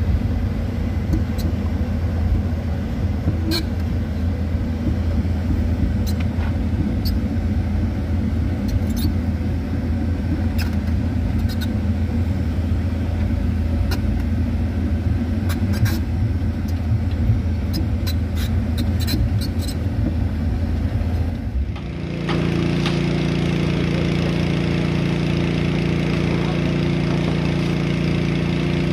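Hydraulic excavator's diesel engine running under load, heard from inside the cab as a deep, steady rumble with scattered sharp clicks and knocks. About three-quarters of the way through it changes suddenly to a smoother, even engine drone.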